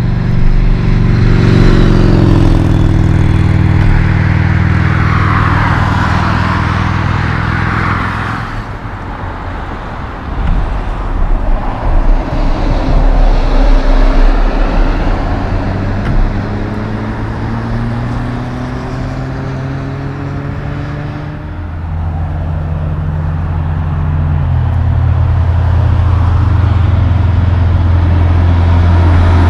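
Diesel tractor-trailers, Kenworth semis, passing close on a highway one after another: deep engine drone with tyre and wind noise that swells and fades as each goes by, the engine pitch dropping as one passes about a second in. From about two-thirds of the way through, another truck's low engine note grows steadily louder as it approaches.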